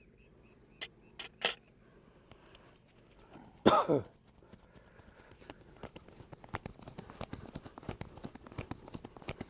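Hand-massage slaps: rapid, uneven slapping and tapping of hands on skin from about five seconds in, in a fast, vigorous massage. Earlier there are a few sharp clicks, and just before four seconds a brief loud sound that falls in pitch.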